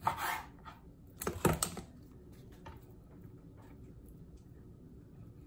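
Chef's knife cutting raw chicken thigh into chunks, the blade knocking on a plastic cutting board: one knock at the start and a quick cluster of knocks a little over a second in.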